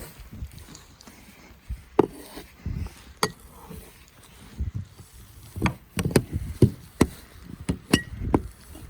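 Footsteps crunching and thudding through deep fresh snow, irregular and sparse at first, then coming closer together from a little past the middle.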